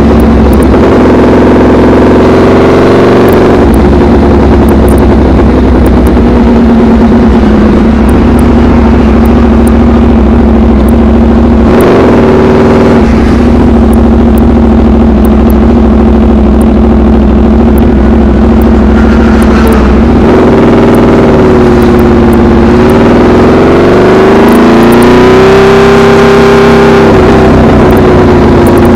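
Aprilia RSV4 Factory's V4 engine through an SC-Project CRT exhaust, running loud at low, steady revs. The revs climb and drop briefly a couple of seconds in, and again in a longer rise and fall past the twenty-second mark.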